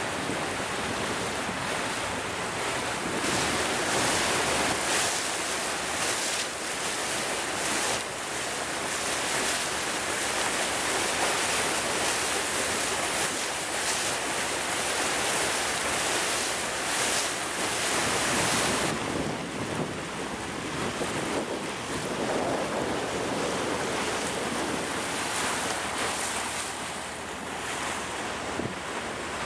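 Wind buffeting the microphone over the rush of water past a small boat under way: a steady, noisy hiss with no clear engine note. The brighter part of the hiss drops away about two-thirds of the way through.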